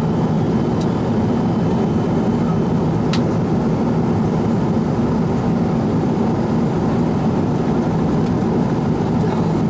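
Steady cabin noise of a Boeing 777-300ER in cruise, the low rushing drone of its GE90-115B engines and the airflow heard from a window seat, with a few faint ticks.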